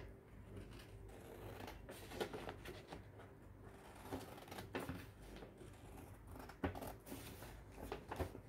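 Scissors cutting through a sheet of light green paper, faint short snips at irregular intervals.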